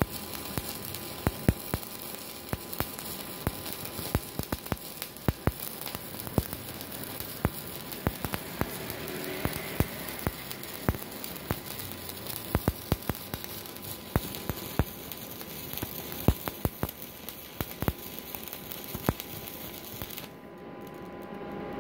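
Stick-welding arc crackling and spitting steadily as a 4 mm LB-52U low-hydrogen electrode burns at about 137 amps from an inverter welder, the arc running without going out. The arc stops abruptly about 20 seconds in.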